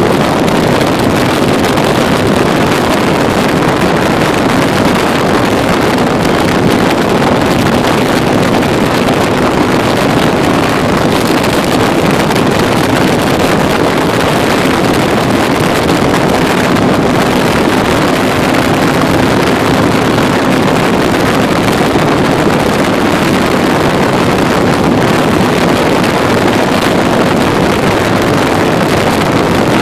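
Can-Am Spyder three-wheeled motorcycle cruising at road speed: steady wind rush over the microphone, with the engine's steady hum underneath.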